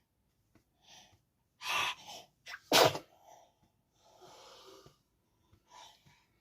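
A 10-month-old baby with a head cold sneezing: a first burst a little under two seconds in and the loudest, sharpest sneeze about three seconds in, followed by softer breathy sounds. The sneezing goes with the baby's runny nose.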